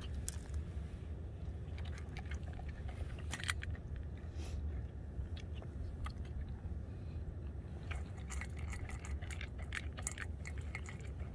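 A large dog crunching and chewing dry kibble from a steel bowl: a run of short, crisp crunches, sparser in the middle and busiest in the last few seconds, over a steady low rumble.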